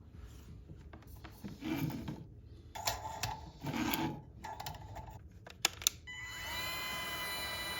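Small hard parts being handled on a workbench: a few knocks and clatters, then two sharp clicks. About six seconds in, a steady electronic tone of several pitches starts, sliding up briefly before holding.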